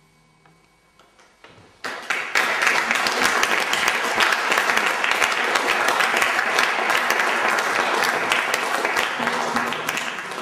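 The final guitar chord rings out faintly, then an audience bursts into applause about two seconds in. The applause stays dense and steady and begins to thin out near the end.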